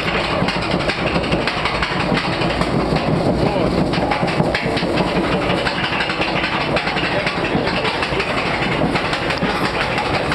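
Boat on a water-ride lift hill being hauled up by the lift chain: a steady, dense clatter of many small clicks and rattles as the chain runs up the flume.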